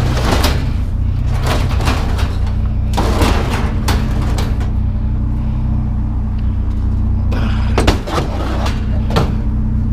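Painted sheet-metal cabinet scraping and knocking as it is pushed and shifted into a pickup's loaded bed, a series of bangs with the loudest about eight seconds in. A steady low engine hum runs underneath.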